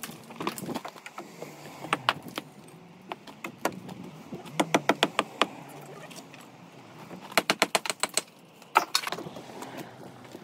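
Hammer knocking at the bricks and mortar of an old chimney stack, in quick runs of sharp taps with pauses between.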